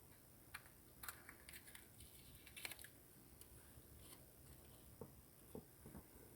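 Faint scattered clicks and light taps over a quiet background: a cluster of sharp, crisp clicks in the first few seconds, then a few duller taps near the end.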